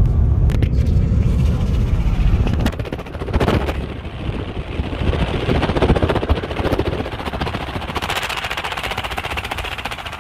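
Vehicle driving on a rough road: a heavy low rumble of road and tyre noise with a dense, rapid crackling rattle, thickest near the end.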